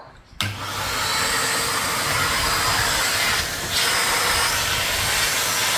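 Numatic James canister vacuum cleaner switched on about half a second in, its motor starting up and then running steadily with a loud airy hiss of suction.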